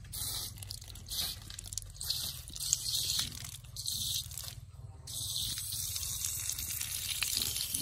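Water spraying from a pig's nipple drinker valve held open by hand: short hissing spurts at first, then a steady spray from about five seconds in.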